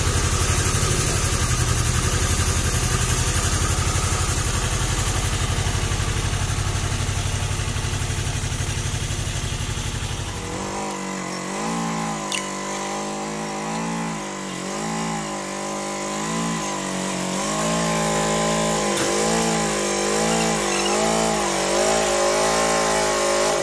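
Ferrari 95RS compact tractor's 40 hp Lombardini diesel engine running steadily; about ten seconds in the sound changes and the engine's pitch rises and falls again and again as the throttle varies while it drives up close. It cuts off suddenly at the end.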